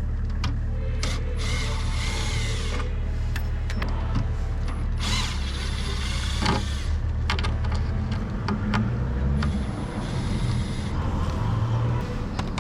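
Cordless power tool run in three short bursts of one to two seconds, with clicks and knocks between, over a steady low hum.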